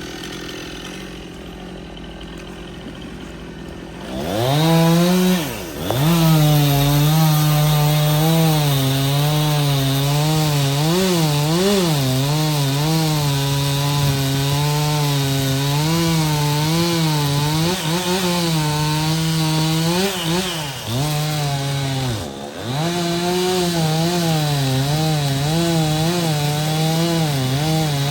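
Stihl two-stroke chainsaw revving up about four seconds in and cutting wood at high revs. Its pitch wavers as the chain loads and frees in the cut, and it drops back briefly a few times.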